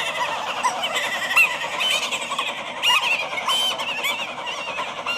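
A flock of birds squawking and chirping all at once, many short calls overlapping over a steady hiss. It cuts off sharply at the end.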